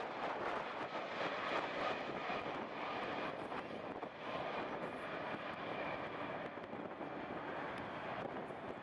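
Jet engines of a landing Boeing 747-400 airliner: a steady rushing jet noise with a faint whine, heard as it flares, touches down and rolls out.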